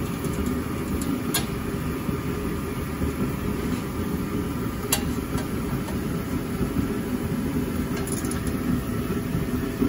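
Hand tools working the exhaust header flange bolts: an Allen key and wrench giving three sharp metal clicks, about a second in, halfway, and near the end. Under them runs a steady low rumble.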